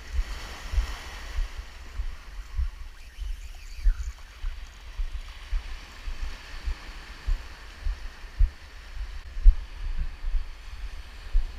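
Surf breaking and foamy wash running up a sand beach, a steady hiss, with irregular low thumps throughout.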